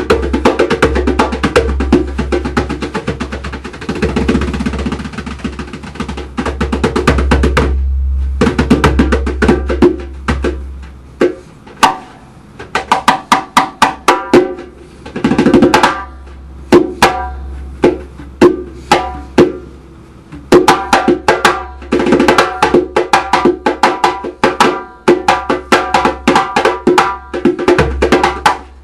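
Solo hand drum played live: fast runs of strikes and rolls that thin out to separated hits in the middle, then pick up again into dense playing.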